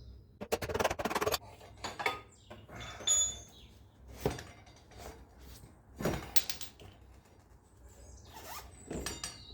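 Light taps knocking the stuck front wheel axle of a Suzuki SV650 out of the fork: a handful of separate knocks and metallic clinks spread over several seconds, some with a short ring.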